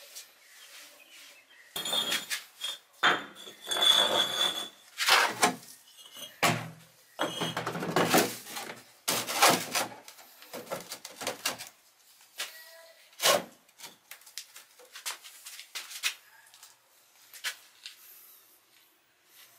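Hard objects being handled and set down: a run of clattering knocks and metallic clinks, some ringing briefly, busiest in the first half. After that come scattered lighter clicks and one sharper knock.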